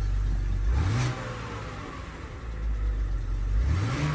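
BMW E83 X3's 2.5-litre straight-six engine idling and revved briefly twice, rising in pitch about a second in and again near the end. It runs smoothly with no misfire on its new coil packs.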